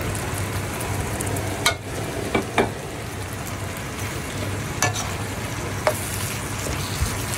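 Sliced bell peppers sizzling in a hot wok with sauce, stirred with a slotted spatula that knocks against the pan in about five sharp clicks.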